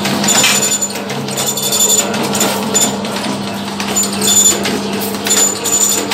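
Electric wire straightening and cutting machine running: a steady motor hum under irregular metallic clatter, with a high whine that comes and goes.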